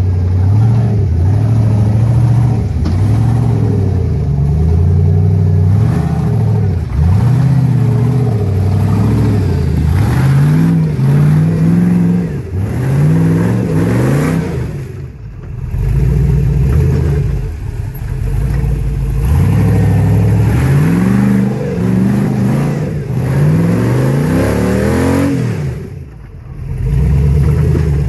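Rock buggy's engine revving loud in repeated bursts, pitch rising and falling, as its tyres spin and claw up a steep rocky ledge. It eases off twice, about halfway through and near the end.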